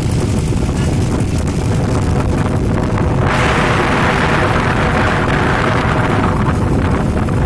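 An engine running steadily with a heavy low rumble. About three seconds in, a loud rushing hiss starts and lasts about four seconds before fading.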